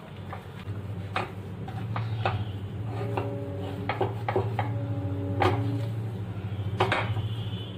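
Silicone spatula scraping and tapping against a nonstick frying pan, stirring thick milk-powder khoya and scraping dried bits off the sides, with irregular knocks. A steady low hum runs underneath.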